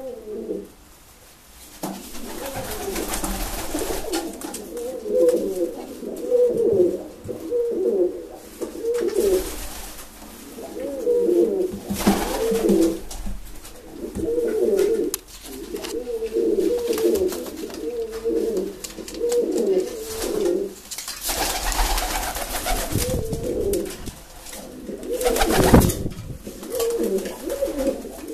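Taganrog tumbler pigeon cooing in repeated runs, with a few short, loud rustles breaking in, the loudest near the end.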